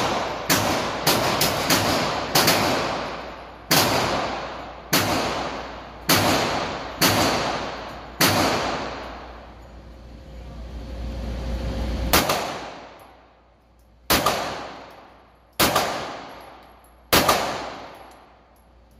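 Pistol shots on an indoor range, more than a dozen in all. A quick string comes in the first two seconds, then single shots about a second apart, and after a pause near the middle a few more shots spaced a couple of seconds apart. Each shot is a sharp crack that rings out in the range's echo.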